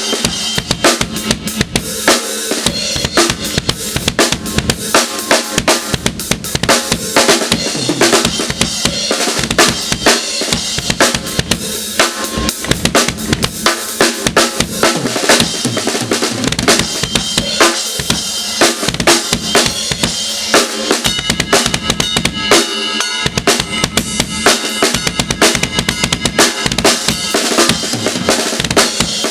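Drum kit played continuously, with rapid bass drum strokes from Tama Iron Cobra pedals fitted with an upgraded cam, under snare hits.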